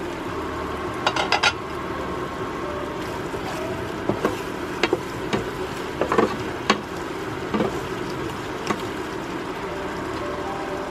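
Sardine and tomato sauce simmering in a pan with a steady hiss, a quick run of clinks about a second in, then a spatula stirring the sauce and knocking against the pan with scattered single taps.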